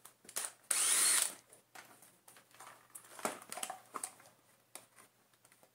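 Screwdriver working at a screw deep inside a Shark vacuum's plastic housing: scattered clicks and scrapes of the bit and plastic, with one louder rasping scrape about a second in.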